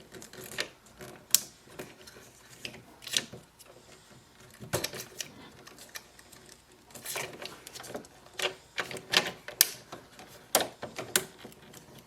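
Irregular clicks, taps and small rattles of plastic parts as the inside of an Epson EcoTank ET-2400 printer is taken apart by hand, with a plate pushed forward and lifted out.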